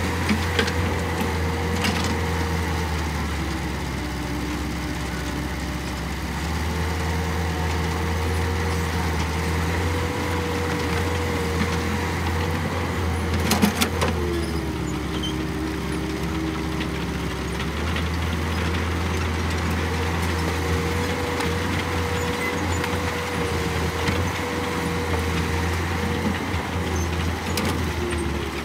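Caterpillar hydraulic excavator's diesel engine running under load as it digs and loads. The drone's pitch dips for a few seconds right after a sharp clank about halfway through, then picks back up.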